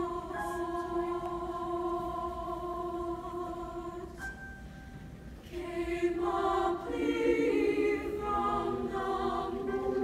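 Women's choir singing: a held chord for about four seconds that dies away, then the voices come back in, fuller and louder, with moving parts.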